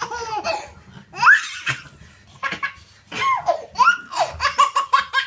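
A baby laughing in high-pitched squeals and giggles, with one rising squeal a little over a second in and a quick run of short laughs near the end.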